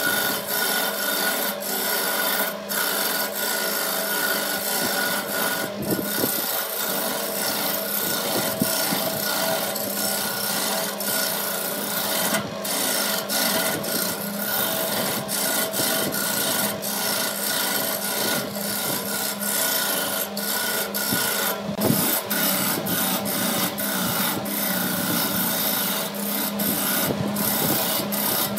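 Wood lathe turning a wood blank while a hand-held turning tool cuts into the spinning wood, a continuous rough scraping with small irregular clicks and a steady hum underneath.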